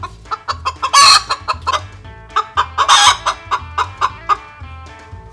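Chickens clucking and squawking, with two loud calls about a second and three seconds in, over background music with a steady low beat.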